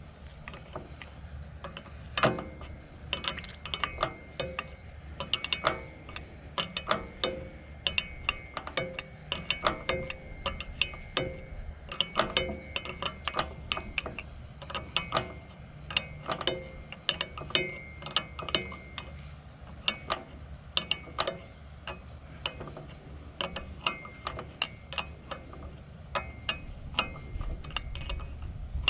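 Hand tools clicking and clinking on metal, several irregular sharp clicks a second, some ringing briefly, as a hydraulic hose and its fittings on a backhoe are reworked. A steady low hum runs underneath.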